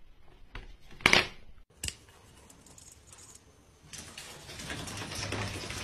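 A sharp plastic clatter about a second in as a kitten jumps inside a plastic laundry basket. From about four seconds a steady scratchy, scuffling noise follows.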